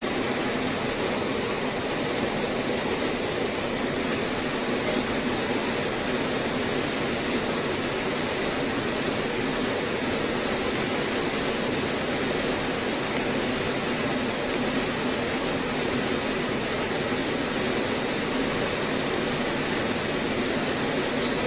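A steady, even hiss with no speech in it. It cuts in abruptly out of dead silence at the start and stays at one level throughout.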